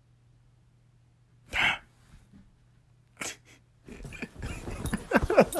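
Pit bull sneezing once, loudly, about a second and a half in, then a smaller snort-like burst. From about four seconds the dog shakes and scuffles with a plush toy on the bed, a jumble of rustling and thumps with short pitched sounds near the end.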